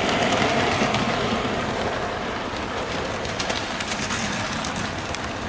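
Bachmann S&D 7F 2-8-0 model locomotive running along the track hauling a rake of coaches: a steady rolling noise from the wheels and motor, with a few light clicks in the second half.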